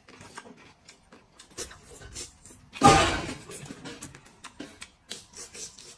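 Eating sounds at a table: small clicks of chopsticks against a foil-lined platter and chewing, with one louder, noisy sound about three seconds in.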